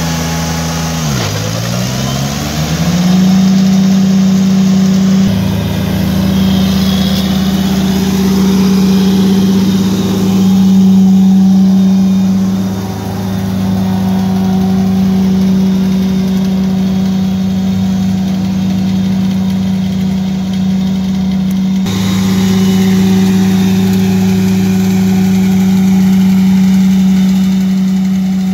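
Kubota BX2680's three-cylinder diesel running at high throttle with its PTO-driven PV18 grass-catcher blower spinning, mowing and vacuuming grass. The pitch dips sharply and climbs back in the first few seconds, then holds steady.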